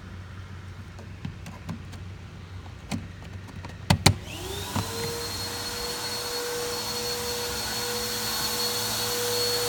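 Vacuum cleaner switched on: after scattered small handling clicks and two sharp clicks about four seconds in, its motor spins up with a rising whine that settles into a steady high-pitched run, growing slowly louder toward the end.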